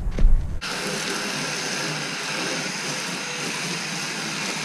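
Garden hose spray gun spraying water onto a car body: a steady hiss of spray that starts suddenly about half a second in, after a brief low rumble.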